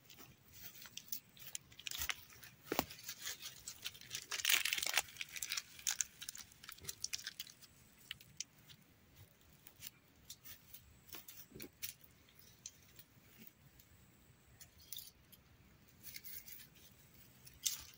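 Irregular crunching and crackling close to the microphone as someone steps through dry leaf litter and grass and picks up litter by hand. It is busiest and loudest about four to five seconds in.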